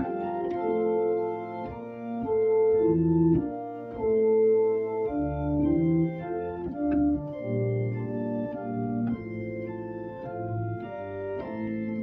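Organ playing a traditional Scottish hymn melody in full chords with a bass line, each chord held steady until it changes.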